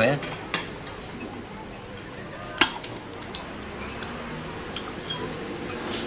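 China cups and saucers clinking at a café table, a few scattered light clinks with one sharper one about two and a half seconds in, over a low background murmur of voices.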